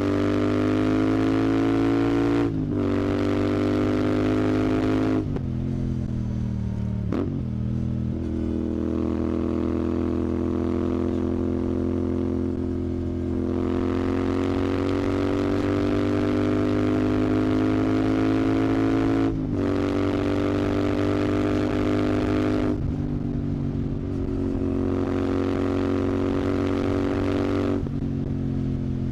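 Royal Enfield Continental GT 650's 648 cc parallel-twin engine, breathing through a Red Rooster aftermarket exhaust, pulling under load on the road. Its note climbs slowly and is cut off briefly about six times, for gear changes or throttle lifts, with a short spell of falling revs early on.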